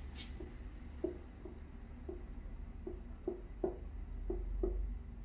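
Marker pen writing on a whiteboard: a click at the start, then a string of short, faint squeaks, roughly two a second, one for each pen stroke.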